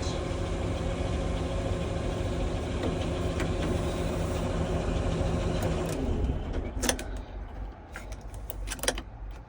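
A John Deere 350G LC excavator's diesel engine runs steadily, just started, heard from inside the cab. About six seconds in it turns quieter, and a few sharp clicks follow.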